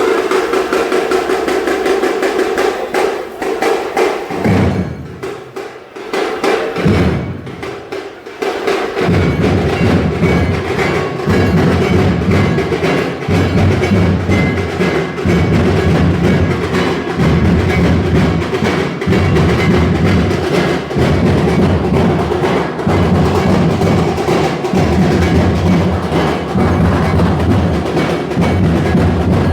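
Festival procession drumming: rapid sharp strikes over heavy drums. The drumming thins out about four seconds in, then a steady rhythm of heavy beats takes over from about nine seconds on.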